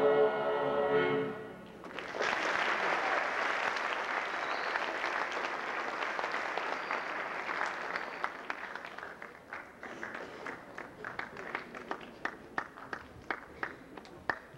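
A choir's final held chord ends about a second in, then an audience applauds; the applause fades and thins to scattered single claps near the end.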